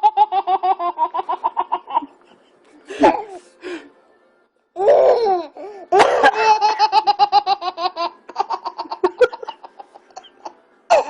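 A baby's belly laughter in fast runs of pulsed 'ha-ha-ha', about eight pulses a second: a bout during the first two seconds and a longer one from about six seconds in. Between them come a few short separate bursts, the coughs that set the baby off.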